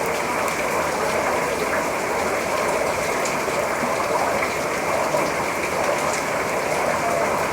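Heavy rain falling steadily: an even hiss with scattered faint drop ticks.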